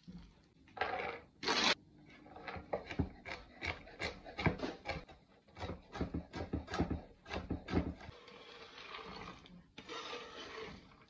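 Kitchen work on a wooden cutting board: a run of sharp, irregular knocks, about two or three a second, from a knife chopping walnuts. Near the end it gives way to a steadier scraping as the nuts are pushed off the board into thick brownie batter.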